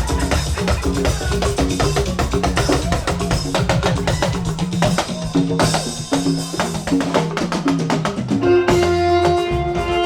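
Live church band playing a hymn, led by a drum kit's quick steady beat over a bass line. About eight and a half seconds in, the drumming drops back and sustained keyboard chords hold.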